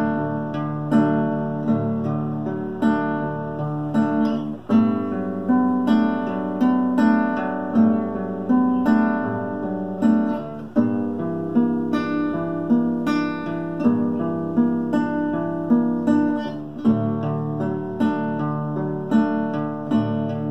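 Solo acoustic guitar playing an instrumental passage: chords picked in a slow, steady rhythm of about one stroke a second, each ringing out, with a change of chord every few seconds.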